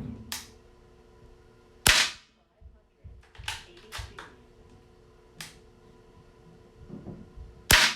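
Two shots from a .22 Umarex 850 M2 CO2 air rifle firing light lead-free pellets, each a short sharp crack, about six seconds apart: one about two seconds in and one near the end. Fainter clicks and knocks come between the shots.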